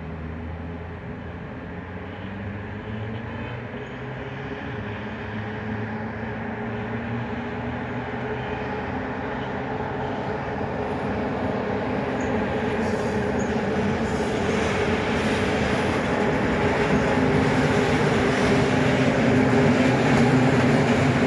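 HŽ series 1141 (ASEA-type) electric locomotive hauling a freight train, approaching and growing steadily louder, with a steady hum over the rail noise.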